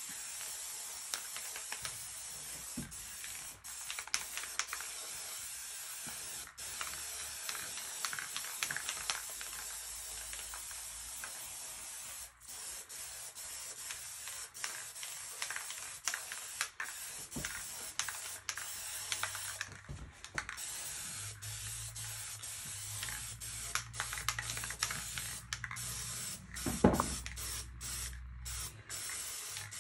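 Aerosol spray paint can spraying in long steady hisses, with short breaks between passes and scattered small clicks. A single louder knock near the end.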